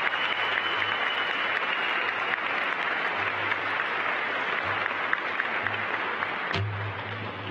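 Audience applauding, slowly dying away near the end.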